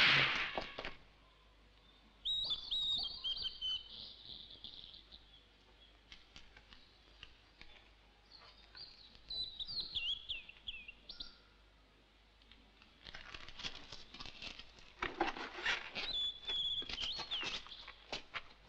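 A small bird singing short, quick, high chirping phrases three times with pauses between. A loud sound fades out in the first second, and light clicks and rustling join in the second half.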